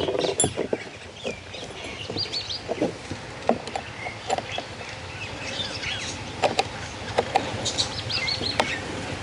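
Birds chirping throughout, with scattered clicks and knocks from chainsaw parts being handled as the guide bar is fitted; the sharpest knocks come a little past the middle.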